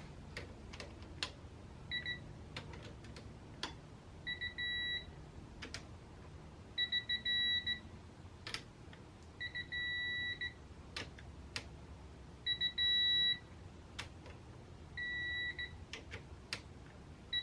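Digital torque wrench beeping as brake caliper bolts are tightened to 18 ft-lbs: short high beeps quickening into a held tone as the set torque is reached, about six times over, with ratchet clicks in between.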